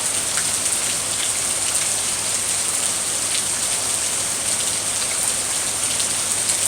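Rain falling steadily: an even hiss with scattered individual drops tapping.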